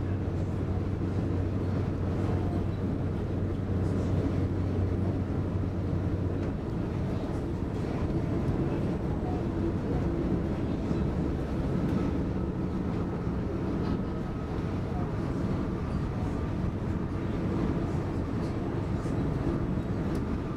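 Inside an X60 (Alstom Coradia Nordic) electric commuter train running at speed: a steady rumble of wheels on rail. A low hum runs under it and stops about six seconds in.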